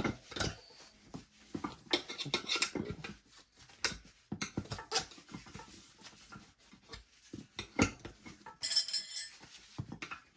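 Metal tire spoons clinking and knocking against a motocross tire and rim at irregular intervals while the tire bead is being broken, with a short scrape about nine seconds in.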